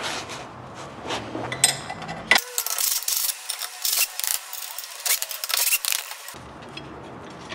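Socket wrench working the 9/16 bolts on a golf cart's front spring plate, metal clicking and clinking, densest from about two and a half seconds in until near the end.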